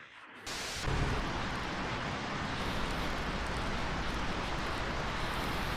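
Steady rushing noise of heavy water, cutting in suddenly within the first second.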